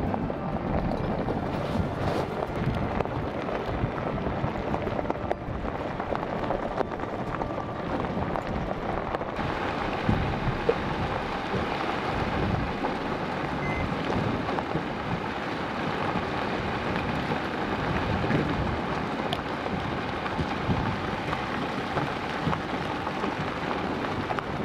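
Steady rushing wind noise buffeting the microphone, its hiss brightening about nine seconds in.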